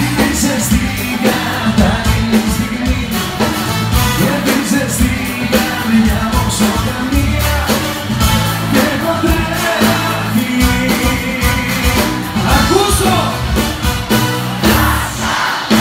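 A live band plays a Greek pop song while a male lead singer sings into a handheld microphone, over a strong bass line and a steady drum beat.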